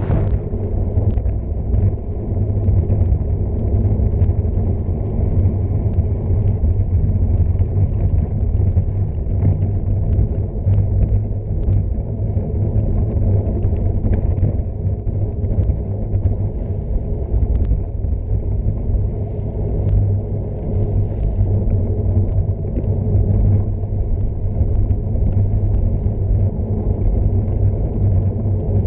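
Steady low rumble of wind buffeting the microphone and wide gravel tyres (Panaracer GravelKing SK 700x43) rolling fast over a rough dirt road, with scattered small clicks and rattles from the bike over the bumps.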